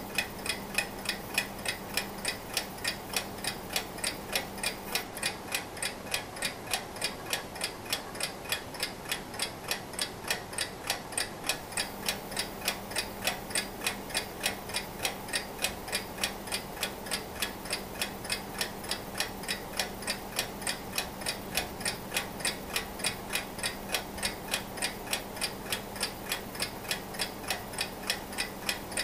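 Antique Junghans mechanical alarm clock ticking steadily, about three even ticks a second.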